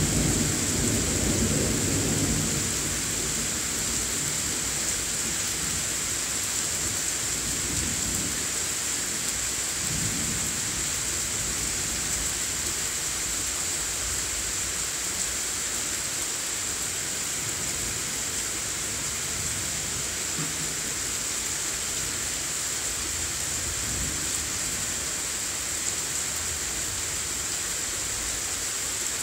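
Thunderstorm: steady rain hissing, with a rumble of thunder that fades over the first few seconds and a few fainter low rumbles later on.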